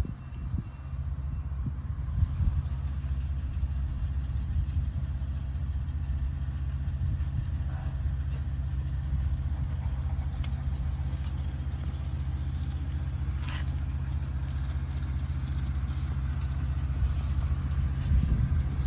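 A steady low engine-like drone, with a few faint short higher sounds over it.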